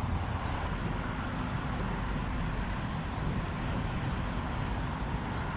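Steady low rumble of outdoor background noise, typical of distant traffic or wind, with a few faint light ticks.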